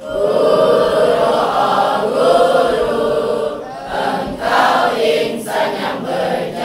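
A large group of children's voices singing together in unison.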